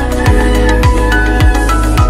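Electronic background music with a steady kick-drum beat, a bit under two beats a second, under held synth notes.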